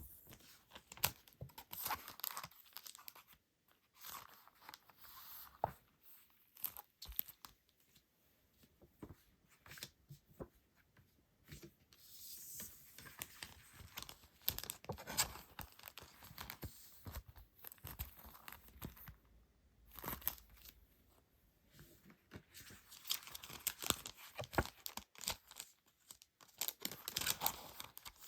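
Packaging being opened and handled by hand: irregular crinkling, rustling and tearing, with small clicks, coming in spells.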